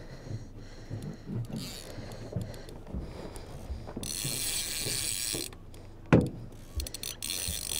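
Fishing reel ratcheting irregularly as line is worked on the rod, with a brief hiss a little past halfway and one sharp knock about six seconds in.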